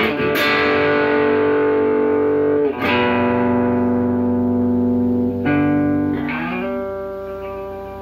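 Electric bass guitar played through a Peavey Classic 30 tube guitar amp with the low end rolled off: a few plucked notes, each left to ring for a few seconds. About six seconds in, one note slides up in pitch, and then the ringing fades.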